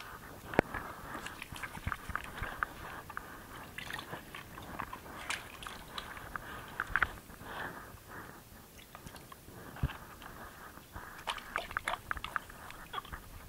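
Hands being washed with water and soap over a plastic basin: a sharp knock about half a second in, then scattered small clicks, splashes and rubbing sounds.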